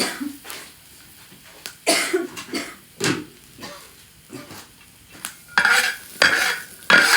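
Metal spatula scraping and clanking against a wok in irregular strokes while peppers are stir-fried, with faint sizzling underneath. The strokes come in a cluster near the end.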